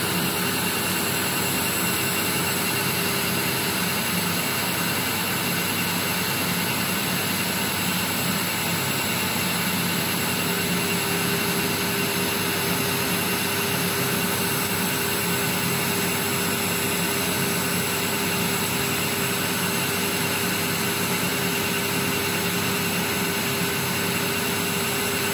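Smoke evacuator drawing air through a nozzle held at the skin during CO2 laser ablation: a steady rushing noise with a low hum under it.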